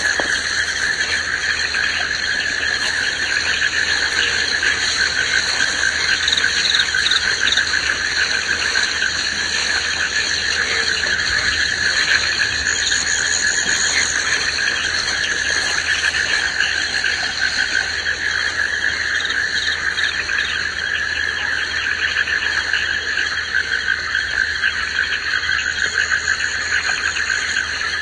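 Steady chorus of insects and frogs, a continuous, even trilling at several pitches at once.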